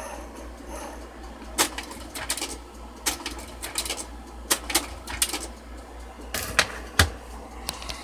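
Kodak Carousel 4400 slide projector's mechanism clicking and clunking in irregular bursts as the remote cycles the slide tray, over a steady hum.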